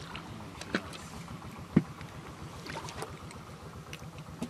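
Light clicks and small knocks from hands working fishing hooks and line in a wooden boat, the loudest a single knock a little under two seconds in, over a faint steady low hum.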